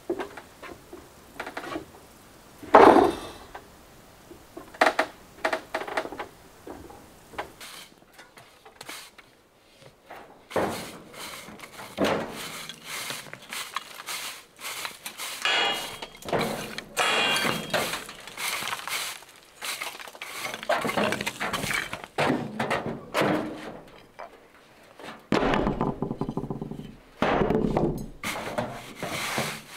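Sand and loose stones being scraped and swept off the top of a dry-stone wall with a long-handled tool: irregular scrapes with stones knocking and clinking, the loudest knock about three seconds in.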